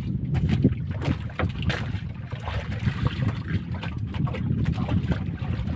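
Wind buffeting the microphone and water slapping against a wooden outrigger boat's hull, with a few light knocks.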